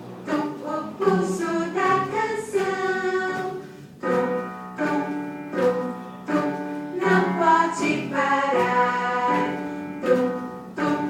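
A choir of mixed voices singing a song in harmony, in sustained phrases with a regular pulse.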